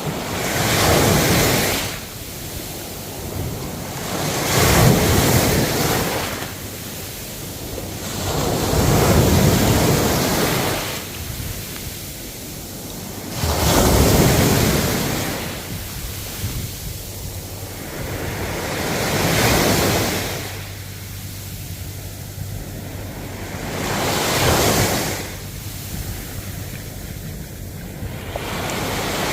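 Ocean waves breaking on the shore, a surge of surf about every four to five seconds over a steady wash, with some wind on the microphone.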